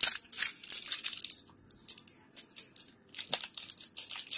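Wrapper of a Chocolate Kimberley mallow cake being torn and pulled open by hand, crinkling in many irregular sharp crackles.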